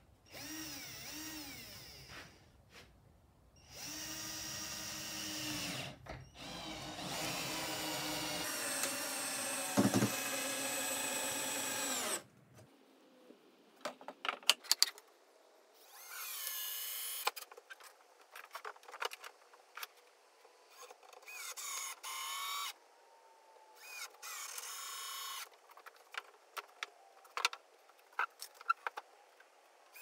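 Cordless drill-driver driving long timber screws into softwood 4x2, in several runs of one to five seconds with the motor whine rising and falling under load. Short clicks and knocks come between the runs.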